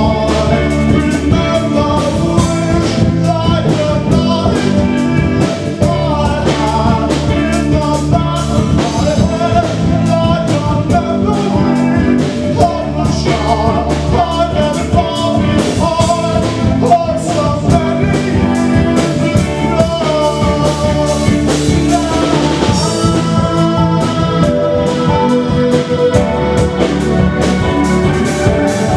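A male singer singing loudly into a microphone over a live band, with drums and guitar playing steadily behind him.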